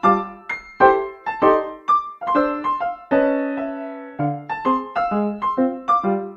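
Background music: a light piano tune of quickly struck notes and chords, several a second.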